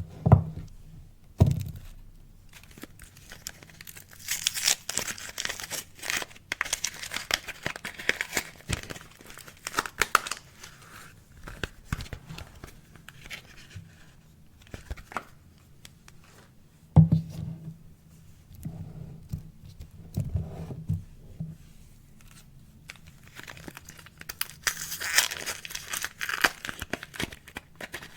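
Packaging around soap bars being torn open and crinkled in bursts, with a few dull thuds between them, one right at the start, one shortly after and one midway.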